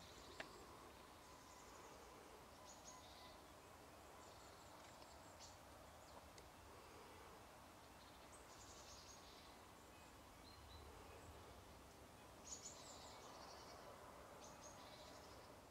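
Faint outdoor ambience with distant songbirds: a few short phrases of quick high notes every few seconds over a steady low hiss.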